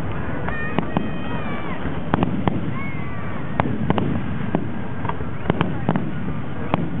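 Fireworks display: sharp bangs and pops at irregular intervals, with high whistling glides, over a crowd's steady chatter.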